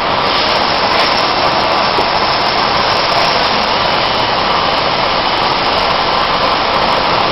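A 3 HP industrial vacuum cleaner running, a loud steady rush of suction noise.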